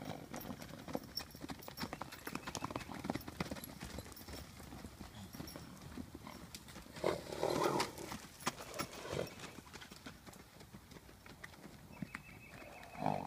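Hooves of several horses galloping and bucking on a dirt paddock: many quick irregular thuds. A louder burst comes about seven seconds in and a shorter one near the end.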